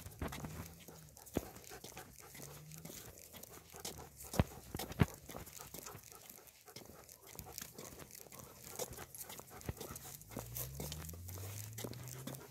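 Three leashed dogs on a walk: scattered clicks and rustles from leash hardware and steps, with a few faint low rising whines, the longest near the end.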